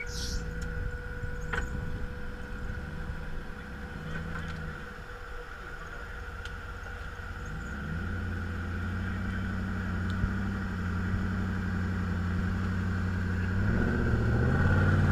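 Off-road 4x4 engine running at low revs, getting louder about eight seconds in and revving up near the end.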